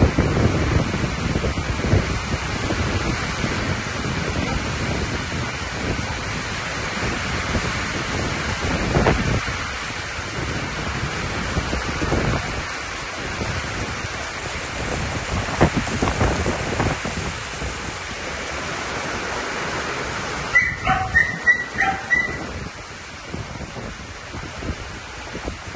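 Heavy storm rain pounding on a corrugated metal canopy roof and a flooded lot, driven by gusting wind, a steady loud rush that eases a little near the end. About 21 seconds in, a quick run of short, high-pitched sounds cuts through the rain.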